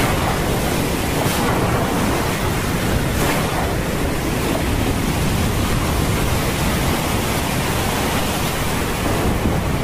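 Steady storm ambience: a dense, even hiss of heavy rain and wind, with two brief swells about a second in and again about three seconds in.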